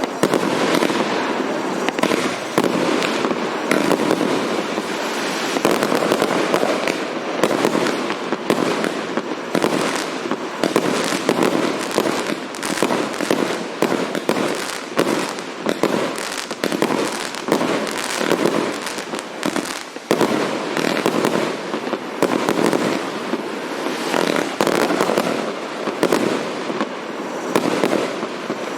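A 171-shot, 1.2-inch consumer firework cake firing in a rapid, continuous barrage of launch thumps and bursting shells, with crackling effects.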